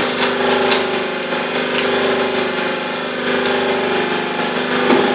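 A machine running with a steady, constant-pitched hum, with a sharp click or knock about four times.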